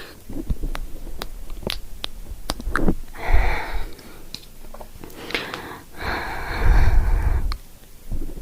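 Close-microphone ASMR sounds: soft wet mouth clicks and smacks scattered throughout, with two longer breathy rushes on the microphone, about three seconds in and again about six seconds in.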